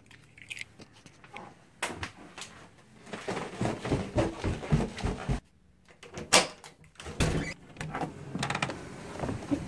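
Handling and movement noises: car keys jingling as they come off a hook, footsteps, and a door latch clicking as a door is unlatched and opened, with irregular knocks and clicks, the sharpest about six seconds in.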